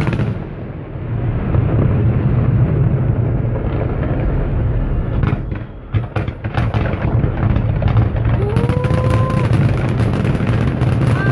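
A large fireworks display: shell bursts merge into a dense, continuous rumble, with a run of sharp cracks about five to seven seconds in. A brief tone rises and then holds for about a second near the end.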